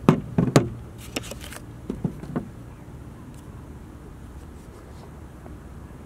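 Handling noise: a few sharp knocks and clicks in the first two and a half seconds, then a faint steady background hiss.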